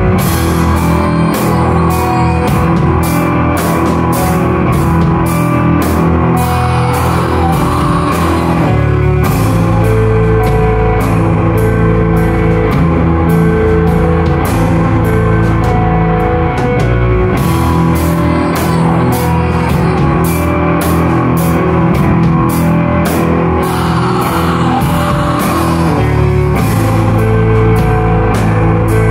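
Rock band playing live at full volume: electric guitar and a drum kit keeping a steady beat.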